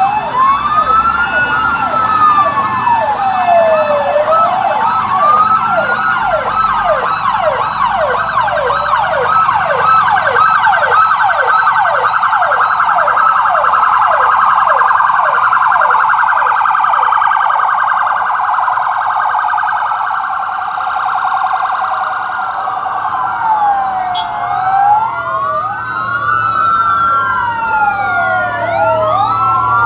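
Emergency-vehicle sirens from a passing convoy of fire trucks and ambulances: a slow rising-and-falling wail, then a rapid yelp of about two sweeps a second, then from about three-quarters of the way through several sirens at once, wailing out of step with one another.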